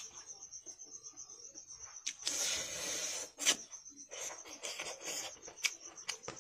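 Eating by hand: fingers working rice on a plate and chewing. A rasping rub comes about two seconds in and lasts about a second, with a few small clicks, over a steady high pulsed chirping.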